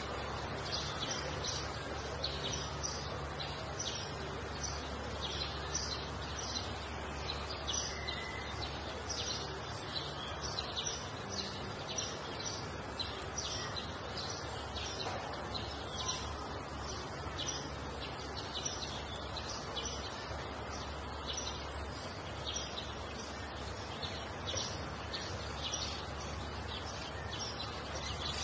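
Small birds chirping continuously in short, rapid, high calls, over a steady low rumble of outdoor background noise.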